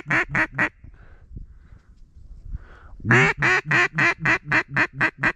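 Duck call imitating a mallard hen, blown close by: a quick string of loud quacks, about five a second, with each quack falling in pitch. One string ends just under a second in, and a second string of about ten quacks starts around three seconds in and grows softer toward its end. This is a hail call, used to turn ducks passing overhead.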